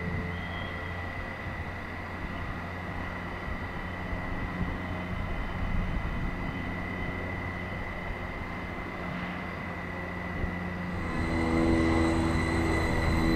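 ÖBB Railjet Xpress electric train running with a steady hum and a steady high whine. About eleven seconds in it grows louder as several new humming tones join in.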